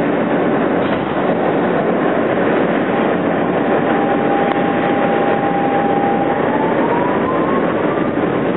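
Steady rumble and rattle of an R160B Siemens subway car rolling along the rails, heard from inside the car. Over it a single whine of the Siemens traction motors holds one pitch for a few seconds, then climbs in pitch over the last two seconds as the train picks up speed.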